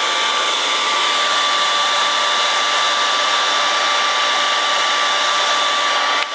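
Handheld hair dryer blowing steadily into a wire-mesh strainer to dry water-rinsed metal parts: a constant rush of air with a steady motor whine. It drops out for a split second near the end.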